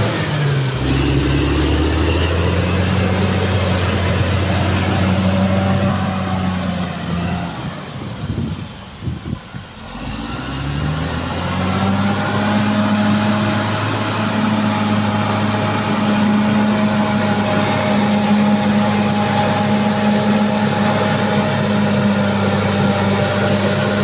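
Caterpillar D6R XL bulldozer's diesel engine running steadily under load as the dozer pushes soil with its blade. The sound drops away for a few seconds about a third of the way through, then comes back at full strength.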